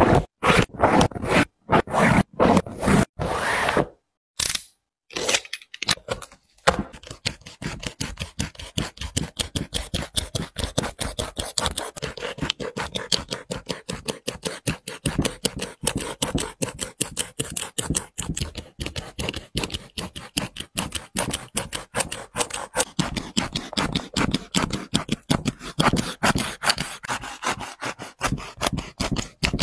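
Shoelaces being pulled and rubbed through a sneaker's eyelets in irregular strokes with short pauses. About six seconds in, a utility knife begins sawing through the glued seam between a basketball shoe's mesh upper and its sole: a fast, steady run of short scraping cuts, several a second.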